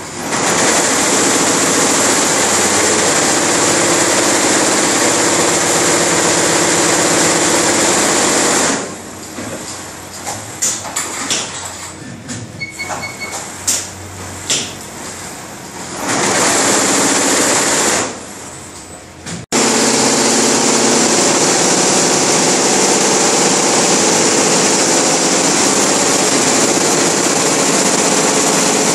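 Multi-head industrial embroidery machine running, its many needle heads stitching together in a loud, dense, steady chatter. About nine seconds in it drops to a quieter stretch of scattered clicks and knocks with four short beeps, then comes back loud. Near the two-thirds mark the sound cuts off abruptly and resumes at full speed.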